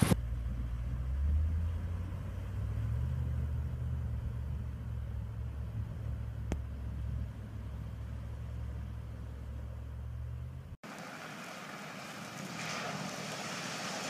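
A Land Rover Discovery's engine running low and steady as the 4x4 fords a river, with a single sharp click partway through. About three quarters of the way in, the sound cuts to a steady hiss as a Discovery wades through deep floodwater.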